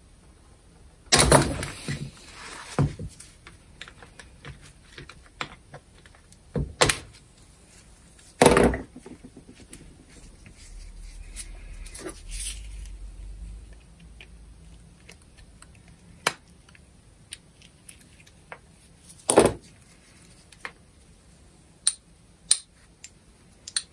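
Small metal parts of an angle grinder's gear head being handled and set down on a workbench during disassembly: a few sharp knocks, the loudest about a second in, around eight seconds and near nineteen seconds, with lighter clicks between.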